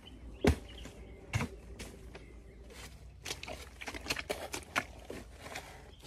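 Footsteps in rubber boots: two heavy thuds about a second apart, then a quicker run of wet steps in sloppy mud.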